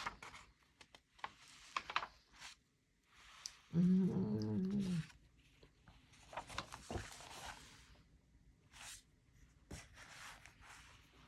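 Rustling and clicks of paper being handled, with a wordless voiced sound about four seconds in that rises and falls for a little over a second, like a groan or grumble.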